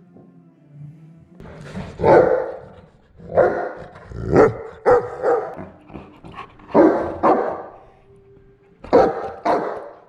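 Dog barking loudly, about nine barks in short runs of one to three with brief pauses between.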